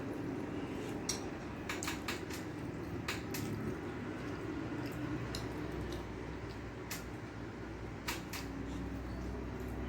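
Close-up eating sounds: rice and curry being mixed by hand and chewed, with scattered wet clicks and smacks over a steady low hum.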